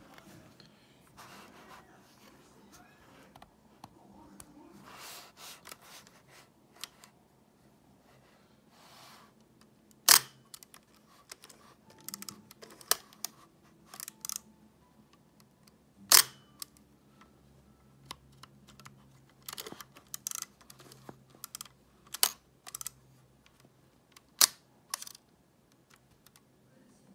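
Nikon F body's shutter and mirror mechanism clicking as its faulty mirror lock-up is worked: four loud, sharp clicks spread over the second half, the first about ten seconds in, with quieter clicks and rattles between them and soft handling rustle before.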